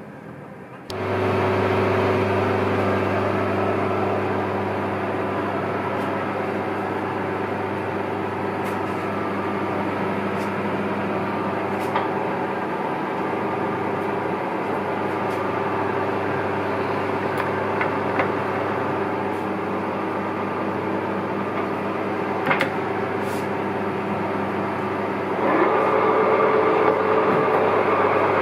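Dean Smith & Grace Type 17T toolroom lathe switching on about a second in and then running steadily, a mechanical hum with several steady tones from the motor and headstock gearing. There are a few light clicks along the way, and near the end the note steps up and gets louder.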